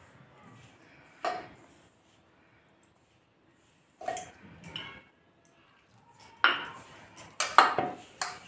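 A hand rubbing and mixing crumbly flour with water in a stainless-steel bowl, as the dough is first brought together. The bowl and the bangles on the wrist knock and clink in scattered bursts: once about a second in, a few times around four seconds, and busiest near the end.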